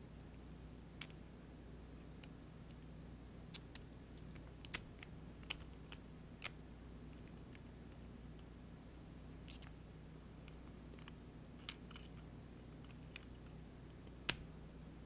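Scattered light clicks and taps of 3D-printed plastic gear-cube parts being handled and fitted together, with the sharpest knock near the end, over a faint steady low hum.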